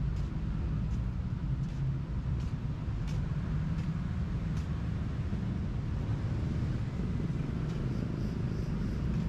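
Steady low rumble of city road traffic, with a few faint clicks in the first half.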